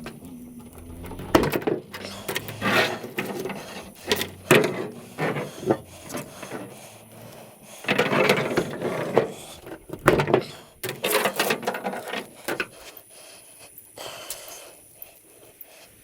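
Scrap metal being handled and sorted: irregular clanks, knocks and short scrapes as pieces are picked up and dropped.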